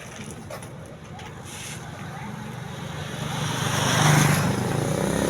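Tour bus engine approaching: a low rumble that grows steadily louder and is at its loudest about four seconds in.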